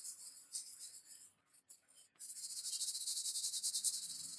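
Cloth rubbing oil onto a bare steel hand saw blade: a high, hissy scrubbing that comes in short strokes at first, then runs steadily from about two seconds in.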